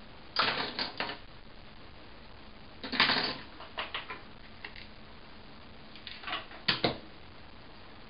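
Small clicks and clatters of objects being handled, in three short clusters about three seconds apart.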